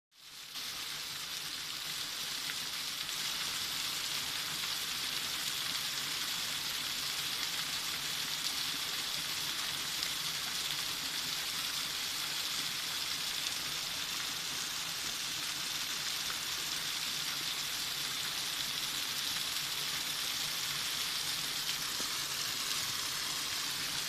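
Small creek waterfall running beneath a shell of ice, a steady hiss of falling and splashing water.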